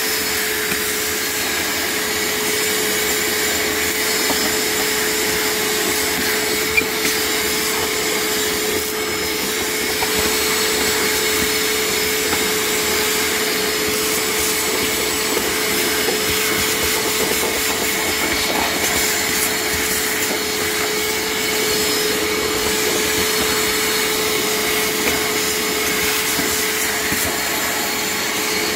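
Small shop vac running steadily, its hose sucking dirt and debris from around a car's fuel pump access opening. It gives a constant motor whine over the rush of air, with one brief click about seven seconds in.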